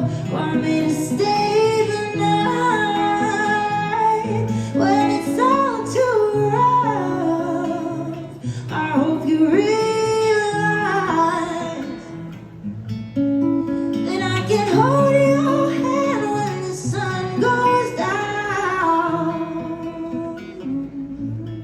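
Live band music: a woman's voice singing long, gliding melodic lines over guitar and held bass chords.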